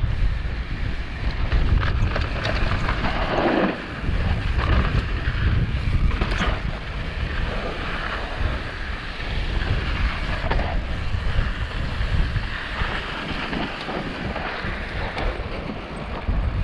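Wind rushing over a GoPro camera's microphone as a mountain bike descends fast on a dusty dirt trail, a steady rumble with tyre noise and scattered sharp clatters of the bike over bumps.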